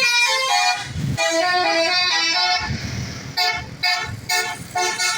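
Indonesian bus 'basuri' telolet horn, a multi-tone horn playing a melody of stepping notes. From about three and a half seconds in, it sounds a run of short, quick toots.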